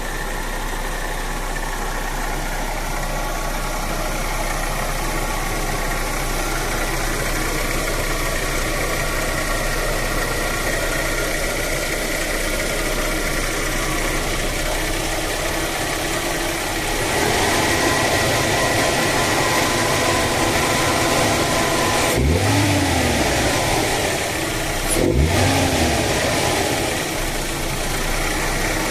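Toyota Carina AA63 engine idling steadily, its speed rising slightly partway through, then blipped twice with quick throttle revs near the end. It is being run while listening for an abnormal noise.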